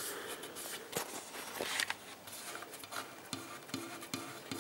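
Light rubbing and scratching with scattered small clicks: leftover sticker adhesive on a motorcycle being rubbed and picked at, and proving well stuck.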